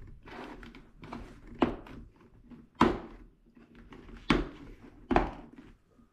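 Helmet inner padding being handled in a full-face motorcycle helmet: four sharp plastic snaps, as of the pad fasteners being pressed into or pulled from the shell, with fabric and foam rustling between them.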